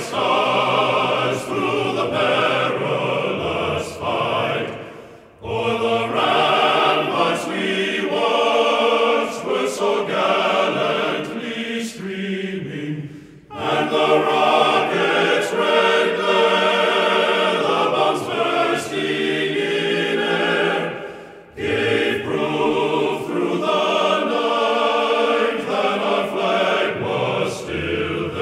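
Choral singing in long phrases, with brief pauses about every eight seconds.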